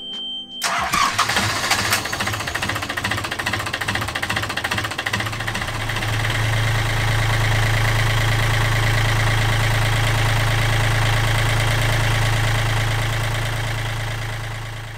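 Yanmar marine diesel engine started with the key after a brief beep. It catches about half a second in and runs, settling into a steady idle hum after about six seconds, then fades near the end. This is the restart after its new heat exchanger was fitted and loose hose clamps were tightened.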